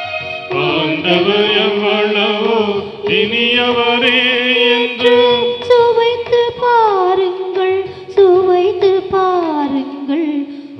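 Tamil Catholic hymn singing: a melodic vocal line of long held, wavering notes in phrases, with a few falling slides in the second half.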